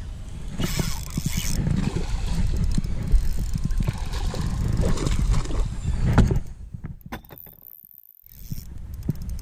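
Spinning reel being cranked while a hooked bass is fought on a spinning rod: quick clicking, rattling turns of the reel and line and rod handling, with a splash of the fish thrashing at the surface about four seconds in. The sound drops away briefly near the end.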